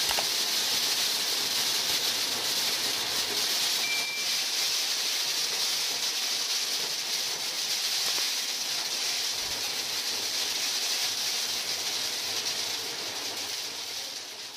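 Homemade corn sheller driven by an angle grinder, running and shelling: a steady, high-pitched mechanical noise of the spinning grinder and kernels rattling through the bucket and out the spout, fading near the end.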